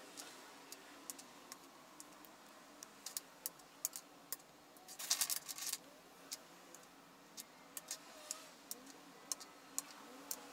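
Scattered light clicks and taps of small wooden branch slices being handled and set down on a wooden tabletop, with a quick cluster of louder clicks about halfway through.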